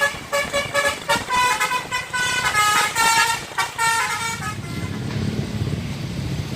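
A bus's 'basuri' telolet horn playing a quick melody of short musical notes, stopping about four and a half seconds in. After it stops, the bus engine is heard running.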